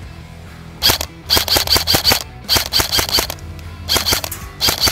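Specna Arms SA-E06 M4 airsoft electric rifle (AEG) firing: a single sharp shot about a second in, then four quick strings of rapid shots, about seven a second, with brief pauses between them.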